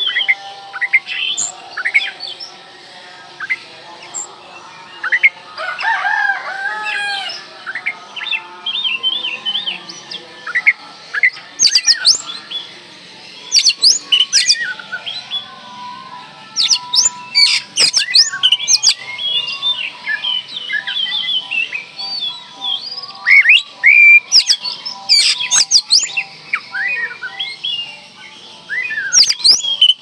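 Oriental magpie-robin (kacer) singing a loud, varied song without pause: whistled rising and falling notes, chirps and sharp high notes in quick succession.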